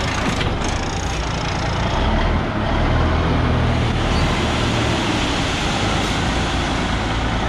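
Heavy diesel engine running steadily, a deep drone that grows louder about two seconds in.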